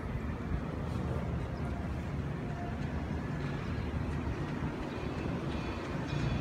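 Typhoon wind buffeting the microphone: a steady low rumble that flickers in strength.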